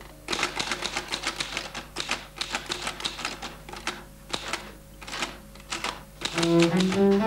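Typewriter keys striking in quick, uneven runs of clicks, with short pauses between the runs. Near the end, low bowed strings (cello and double bass) come in.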